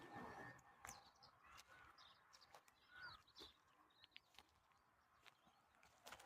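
Faint, scattered bird chirps with a few small clicks over near silence outdoors.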